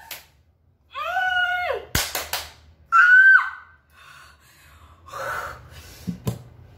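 A woman's excited high-pitched squeals: a shriek about a second in and another about three seconds in, each rising and falling in pitch. Between them comes a quick run of sharp hand claps.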